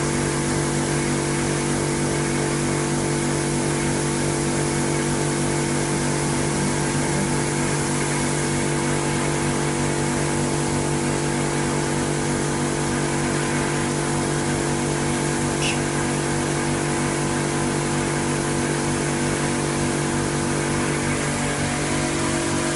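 Self-service car wash machine's motor-driven pump running with a steady hum under a constant hiss of spray from the wash gun. The machine is in foam mode, with the foam still travelling down the 15-metre hose to the gun.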